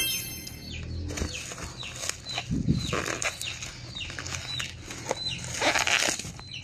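Bubble wrap crinkling and rustling in irregular bursts as hands handle and unwrap a wrapped glass jar, with short high chirps recurring about every half second.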